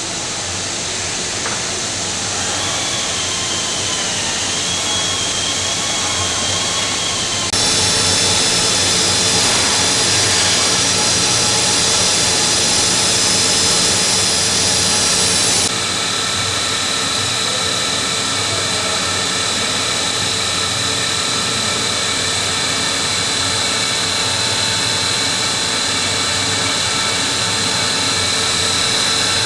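Machinery of a PVC fibre-reinforced hose production line running: a steady whirring hiss with high, steady whines. The sound changes abruptly about 7 seconds in and again about 16 seconds in. In the later part the yarn braiding machine wrapping the hose is running.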